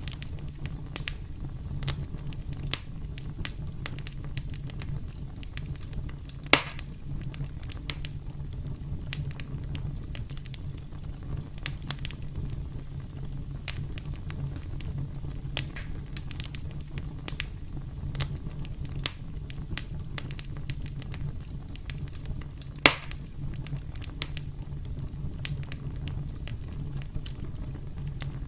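Wood campfire crackling steadily, with a low rumble under many small snaps and two louder pops, one about six seconds in and one near the end.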